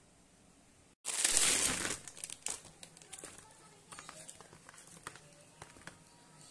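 Plastic sleeves of frozen ice pops crinkling as a hand handles them on a tray. About a second in comes a loud rustle lasting about a second, then scattered lighter crinkles and clicks.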